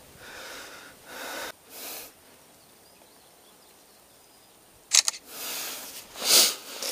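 Camera shutter clicks and the rustle of hands and clothing while a smartphone takes photos. A sharp double click comes about five seconds in.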